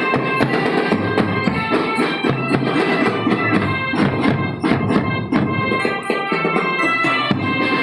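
School marching drum band playing: a steady stream of drum strokes under a held, sustained melody line.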